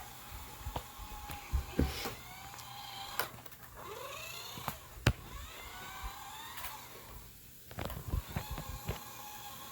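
Small electric motor of a toy remote-control car whining in repeated bursts of about a second, its pitch gliding as it speeds up and slows, with sharp knocks and clicks in between; the loudest knock comes about five seconds in.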